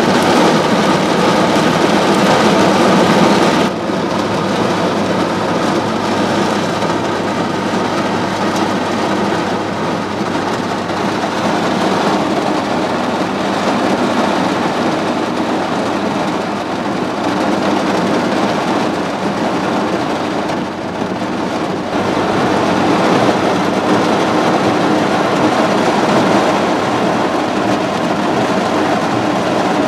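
Heavy hurricane rain and wind beating on a vehicle's roof and windshield, heard from inside as a dense, steady rush. Its level and tone shift abruptly about four seconds in and again around 22 seconds.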